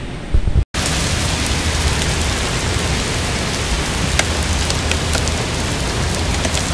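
Heavy rain during a violent storm, heard from inside a car: a dense, steady, loud hiss with a low rumble and scattered sharp taps. It cuts in abruptly under a second in.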